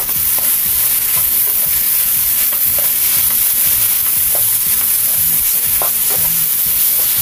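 Banana pieces, grated coconut, cashews and raisins sizzling in ghee in a nonstick frying pan as a spatula stirs them. The sizzle is a steady hiss, with short scrapes and taps of the spatula on the pan about once a second.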